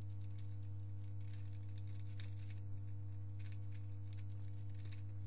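Scattered plastic clicks and rattles of a Rubik's Cube being twisted, a handful of short clicks spread across the seconds, over a steady low hum.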